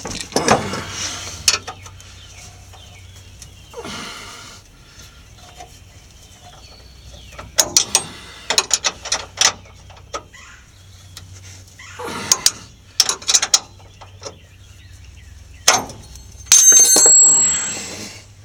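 Hand ratchet and socket clicking in short runs, with scattered metallic clanks of tools, as air bag mounting bolts are run in under a pickup. A louder, harsher noise lasts about a second and a half near the end.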